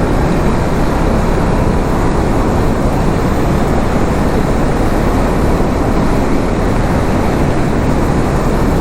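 Steady wind and road noise from a motorcycle ride.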